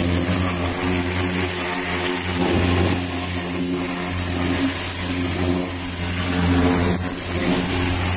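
Pressure washer running, its pump humming steadily under the hiss of the water jet spraying into the wheel arch and tyre.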